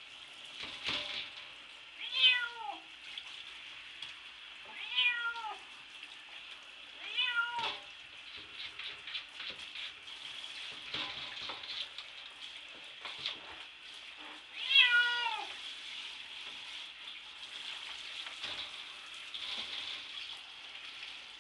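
Domestic cat meowing in a bathtub: four long, falling meows, the last and loudest about fifteen seconds in, the distress of a cat being bathed that wants out. Between them a steady hiss of shower water and scattered short scratches and knocks.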